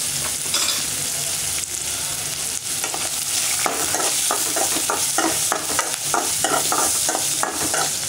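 Chopped onions and curry leaves sizzling in hot oil in a metal kadai. About halfway through, a metal spoon starts scraping and stirring them in quick strokes, about three a second.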